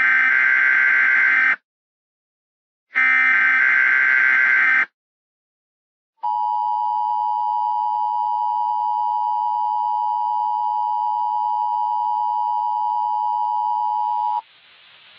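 Emergency Alert System broadcast tones. Two short SAME-header data bursts, warbling modem-like tones each lasting under two seconds, are followed after a gap by the steady two-tone EAS attention signal, which sounds for about eight seconds and cuts off abruptly. A faint hiss rises near the end.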